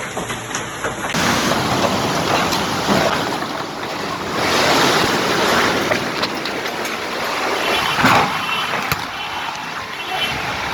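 Hailstorm with strong wind: a dense rushing noise of rain and hail, swelling with the gusts, with wind buffeting the microphone.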